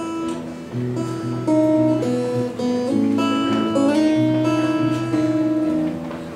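Acoustic guitar strumming the closing bars of a folk-pop song, with held notes changing about every half second.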